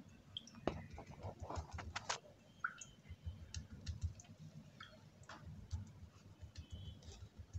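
Faint, scattered light clicks and taps of a wet hand patting water onto raw bread dough in a ceramic baking dish.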